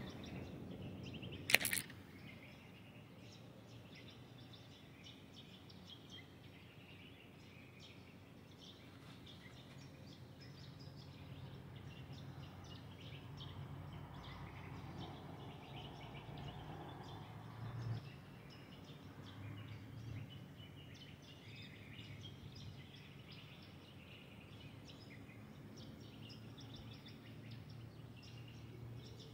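Birds chirping and calling faintly at dawn over a steady low background hum, with one sharp click about a second and a half in.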